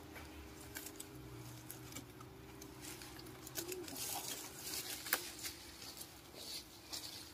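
Bumblebees buzzing around their opened nest in a wooden nest box, a faint steady hum, with light rustles and clicks as the box is handled and tilted over dry leaves.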